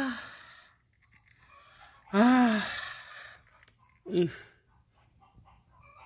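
Chicken calling: the tail of one long arched call at the start, another about two seconds in, and a short falling call about four seconds in.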